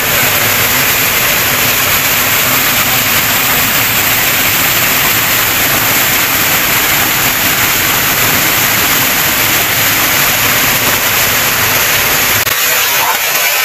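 Small waterfall pouring into a rock pool close by: a loud, steady rush of water. Near the end the low rumble in it drops away.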